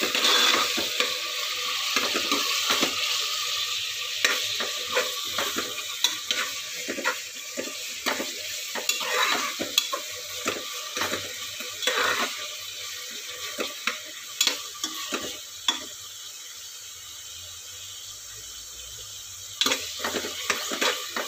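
Onions, garlic, dried red chillies and curry leaves sizzling in hot oil in a pressure cooker, with a metal spoon stirring and scraping against the pot in frequent clicks. Both get quieter and the stirring pauses for a few seconds before resuming near the end.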